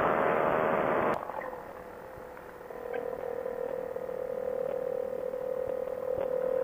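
Quicksilver Sprint ultralight's engine running loud at power, dropping off abruptly about a second in. After that the engine idles more quietly with a steady hum that dips slightly in pitch and holds, rising a little near the end, while the aircraft rolls on the runway.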